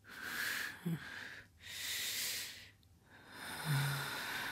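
A drowsy man's heavy breaths as he is being roused from sleep: three long breathy exhales, with a short low grunt about a second in and a longer one near the end.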